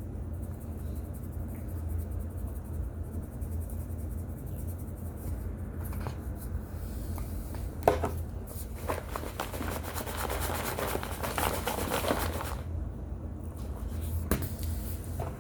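Baked cornstarch chunks crunching, with a dense crackle for several seconds in the middle and a couple of sharp clicks, over a steady low hum.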